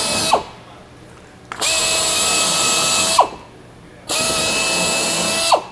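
Drill with a 13/64-inch bit boring holes through a portable toilet's plastic roof and front panel, running in short bursts. A brief run at the start, then two runs of about a second and a half each, every run ending in a falling whine as the drill winds down.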